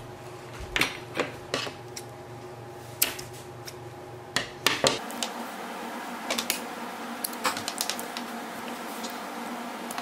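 Irregular light knocks and clicks from hands handling a driftwood stick on a tabletop while knotting jute twine onto it.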